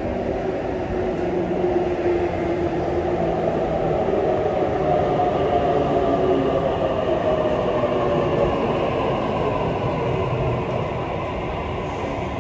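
Double-deck electric suburban train pulling into a station platform and slowing. Its motor whine falls steadily in pitch over the rumble of the wheels, loudest as the cars pass close by.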